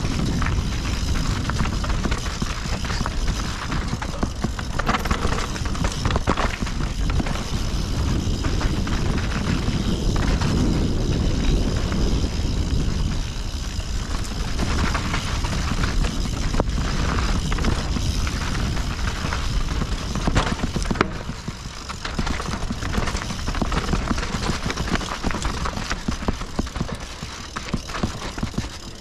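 Mountain bike ridden down a rough, rocky technical trail: a steady low rush of rolling tyres and air, with many sharp rattles and knocks from the bike over rocks and roots. The rush drops a little about three-quarters of the way through.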